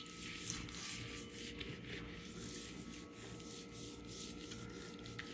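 Faint rubbing of hands working a spice paste into the scored skin of a whole fish, in small irregular strokes.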